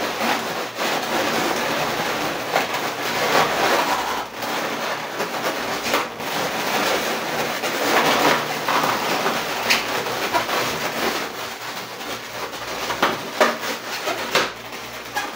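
Twisted latex modelling balloons (260s) rubbing and creaking against each other as balloon flowers are pushed down into a balloon bouquet. It is a continuous loud rustling, with several brief louder scrapes.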